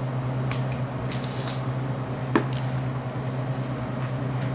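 Light handling noises as sealed trading card boxes and sticky notes are moved and set down on a table: a few short rustles and a sharp tap about halfway through, over a steady low hum.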